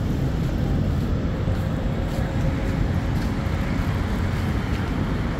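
Steady traffic rumble of a busy city street, with faint voices in the mix.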